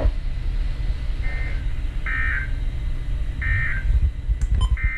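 EAS end-of-message data bursts: four short, warbling digital tone bursts about a second and a half apart, closing a NOAA Weather Radio severe thunderstorm warning, over a steady low hum of the relayed audio. A brief click comes near the end.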